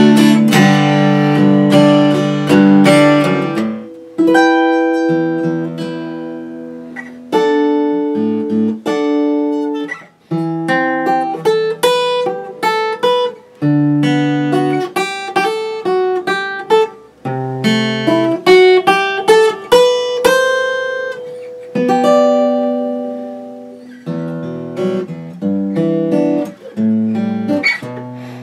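Martin D-41 dreadnought acoustic steel-string guitar played by hand: ringing strummed chords for the first few seconds, then a fingerpicked passage of chords and single notes, each left to ring out and fade.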